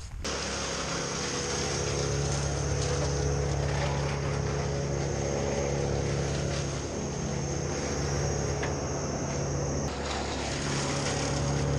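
An engine running steadily at constant speed, with only a brief dip in level about seven seconds in.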